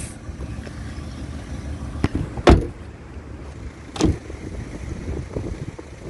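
Car door slammed shut about two and a half seconds in, the loudest sound, followed by a second, lighter thump about a second and a half later, over a low steady rumble.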